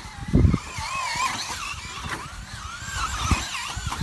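Traxxas Slash RC truck's motor whining, its pitch rising and falling as it is revved up and down, with tyres skidding on the trampoline mat. A heavy thump about half a second in, with lighter knocks after it.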